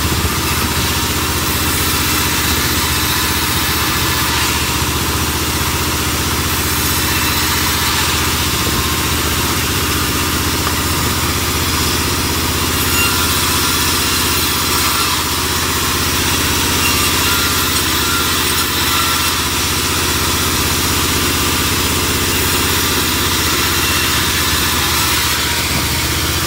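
Vertical band-saw mill running with a constant drone while a log is fed through the blade and ripped into planks.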